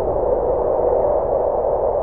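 Steady howling wind, a hollow rushing tone held at one middle pitch, without gusts or breaks.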